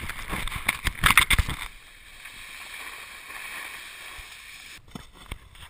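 Snowboard sliding and scraping over packed snow, with louder scrapes in the first second and a half, then a steadier hiss.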